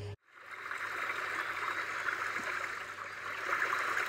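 macOS Ventura's Background Sounds 'Stream' soundscape playing: a steady recording of rushing, babbling stream water that fades in just after the start.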